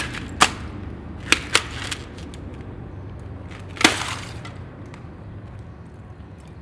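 Boots stepping on and cracking through a brittle white crust lining a floor trench: a quick run of sharp crunches in the first two seconds, then a louder, longer crunch about four seconds in.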